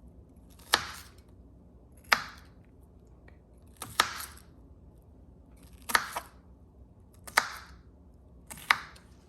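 Kitchen knife slicing through onions: six slow, separate cuts, each ending in a sharp knock, about one every second and a half.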